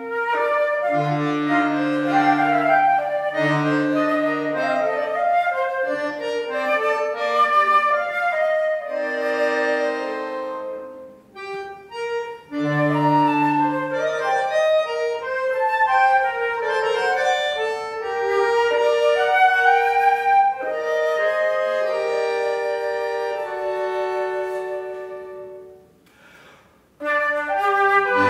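A chamber trio of flute, bass clarinet and accordion playing classical music. The music breaks off briefly about eleven seconds in, nearly stops about two seconds before the end, then starts again.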